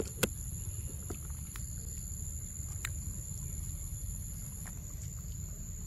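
Young macaque eating a ripe mango: a few sharp, wet mouth clicks of biting and chewing, the loudest just after the start, over a steady low rumble and a constant high-pitched whine.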